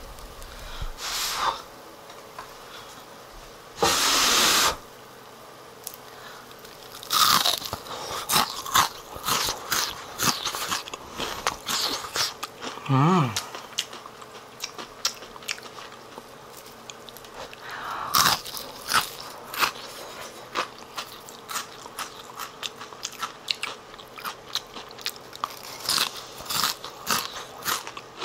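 Hot frying oil crackling and popping irregularly in a pan as vegetable tempura fries and is lifted out with chopsticks, with a short louder rush of noise about four seconds in.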